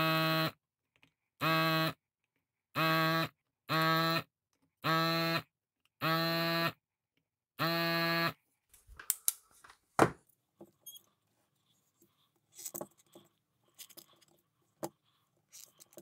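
Handheld electric desoldering gun's vacuum pump buzzing in short bursts, seven times in about eight seconds, as it sucks solder off the old LEDs' pins on the keypad circuit board. After that come scattered clicks and scrapes of handling, with one sharp click about ten seconds in.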